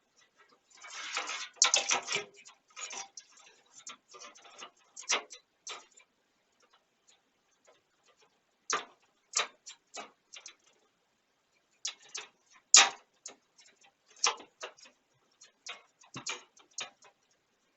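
Irregular clicks, taps and light rustling of hardware being handled and fitted into a PC case, in clusters with pauses of a second or two between them.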